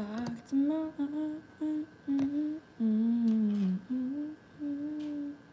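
A woman humming a short tune with her lips closed: about eight separate notes, the longest a falling note near the middle.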